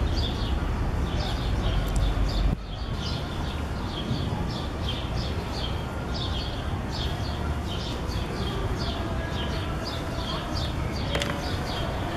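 Small birds chirping, short high falling chirps repeating several times a second, over a steady low outdoor rumble that drops abruptly about two and a half seconds in.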